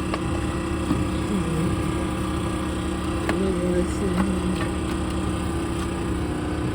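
Steady drone of construction machinery's engine running nearby, with a few light clicks over it.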